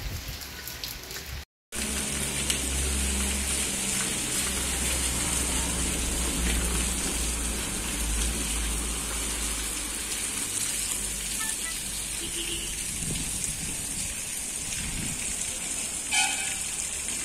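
Steady rain hissing, with a low rumble underneath. The sound drops out completely for a moment about a second and a half in.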